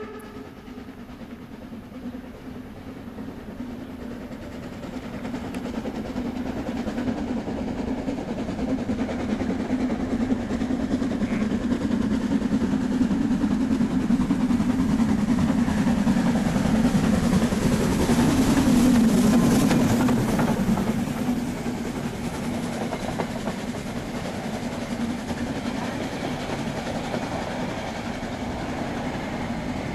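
Metre-gauge steam locomotive 99 7243-1 approaching and running past with a steady rumble that builds to its loudest about two-thirds through as the engine goes by, then its coaches rolling past at an even level.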